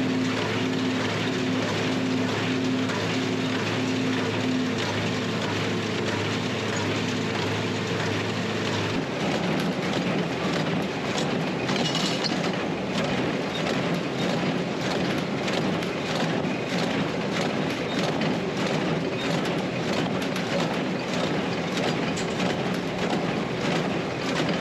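Combine harvester running while driven down the road, heard with its clanking and rattling. A steady engine hum holds for about the first third, then gives way to a noisier clatter.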